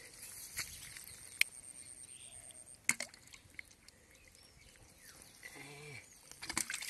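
Hands squelching and digging in wet mud, with a few sharp wet clicks and splats. A brief vocal sound from a person a little before the end.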